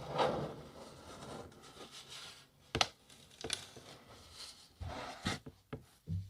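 Fingers and fingernails scratching and rubbing on a cardboard box close to the microphone, a scratchy, fuzzy sound with a few sharp clicks in the middle.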